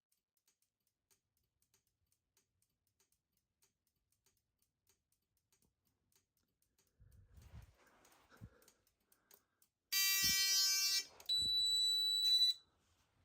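Near silence with faint regular ticking, then a few soft low knocks. About ten seconds in a Simplex fire alarm horn sounds for about a second with a harsh buzzy tone. It stops briefly, then sounds again for about a second with a higher, piercing steady tone.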